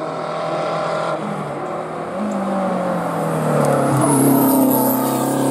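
Renault 5 Turbo rally car's engine pulling hard as the car climbs toward and past, growing steadily louder. The engine pitch drops and picks up again about two seconds in, as at a gear change.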